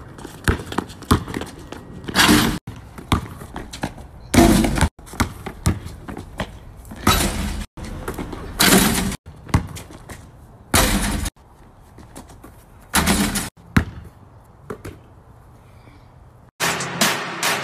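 A basketball slamming and thudding during driveway one-on-one play at a pole-mounted hoop: about six loud, short impacts, roughly two seconds apart, with quieter stretches between them.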